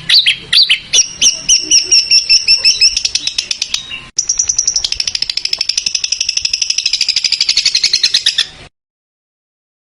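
Recorded songbird song made into masteran: a run of sharp, high repeated chirps at two to three a second that quicken, then an abrupt switch to a fast, dense trill of rapid notes that cuts off suddenly about nine seconds in.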